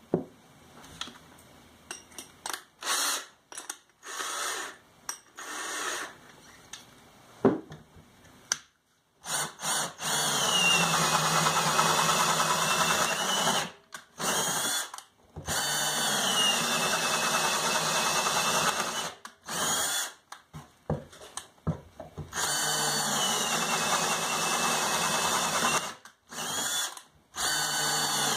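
Handheld electric drill cutting hardwood plugs: a few short trigger bursts, then three longer runs of several seconds each, the motor's pitch shifting as it spins up and slows under the cut.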